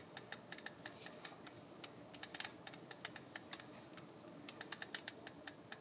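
Winding knob of a manual Hasselblad film back ratcheting in quick runs of faint clicks, in several spells with pauses between. The film is being wound on toward frame one.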